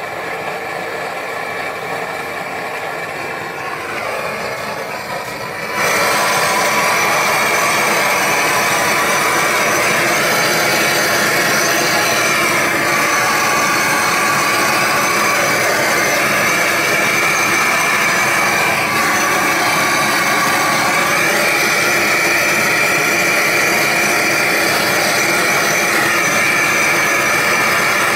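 Hose-fed gas blowtorch burning steadily, a continuous rushing noise, while it heats a copper model boiler for silver soldering. It gets louder about six seconds in and then holds level.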